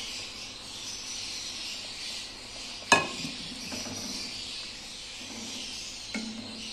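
Milk and grated bottle gourd sizzling in a hot metal pan, a steady hiss, while a wooden spatula stirs them. A sharp knock of the spatula against the pan comes about three seconds in, and a lighter one near the end.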